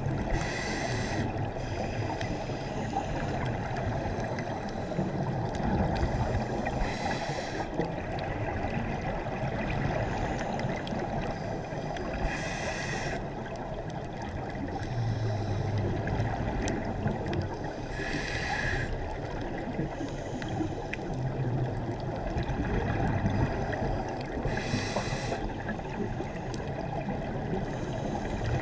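Scuba diver breathing through a regulator underwater: five short bursts of exhaled bubbles, about one every six seconds, over a steady low underwater rush.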